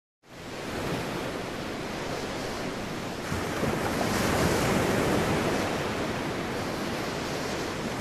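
Ocean surf: waves breaking and washing up a sandy beach as a steady rush, swelling about three and a half seconds in and easing off again.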